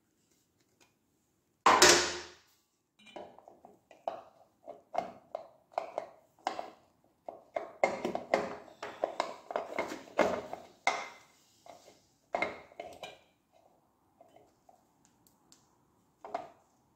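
A sharp metallic clank about two seconds in, then a run of irregular metallic clicks and clinks as the parts of the Ducati Scrambler 350's gearshift mechanism are handled and worked into place.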